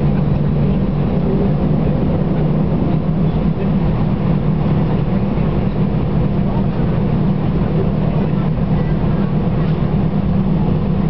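Airbus A319's CFM56 turbofan engines heard from inside the cabin at taxi power, a steady even drone with a low hum and no spool-up.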